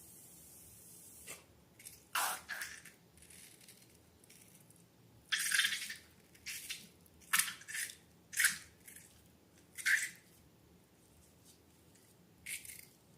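Slime being squished and handled, giving a series of about eight short wet squelches a second or so apart.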